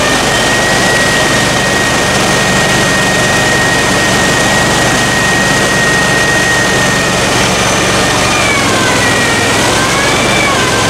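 Argo amphibious ATV's engine running hard with a steady high whine as it strains in deep mud. About eight seconds in, the revs dip and climb again.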